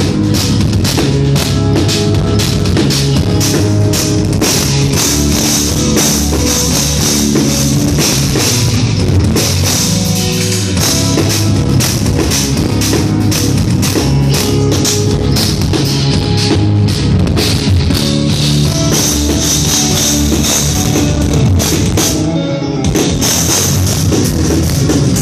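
Live instrumental progressive metal, heard loud: eight-string electric guitars and a rock drum kit playing dense, busy rhythms. The cymbals drop out briefly near the end, then the full band comes back in.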